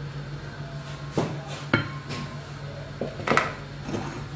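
A spatula, a plastic mixing bowl and a glass baking dish knocking as cake batter is scraped out and the filled dish is handled: a few sharp knocks, the loudest a little after three seconds in.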